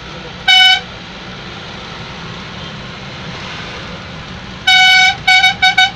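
A vehicle horn honks one short blast about half a second in. Near the end it sounds a longer blast and then a quick run of short toots, the usual warning at a blind hairpin bend on a mountain road. Steady engine and road noise runs underneath.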